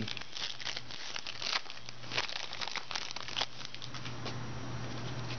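Trading card pack wrapper being torn open and crinkled by hand, an irregular run of crackling and rustling that dies down after about three and a half seconds.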